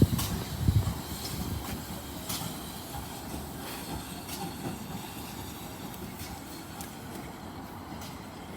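Train running on rails: a steady rumble with scattered clicks from the wheels, louder in the first second and then settling.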